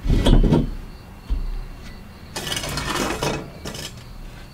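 A heavy thump with a low rumble, then rustling and light knocks as a person settles at a glass table and handles a plate and a stainless steel bowl.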